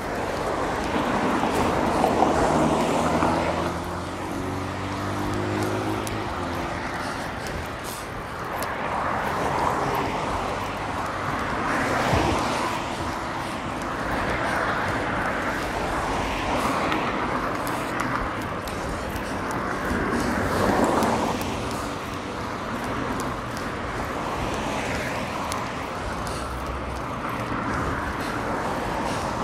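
Road traffic heard from a bicycle moving through city streets, with a steady rush of wind noise on an action camera's microphone. A motor vehicle's engine speeds up, rising in pitch in steps, a couple of seconds in.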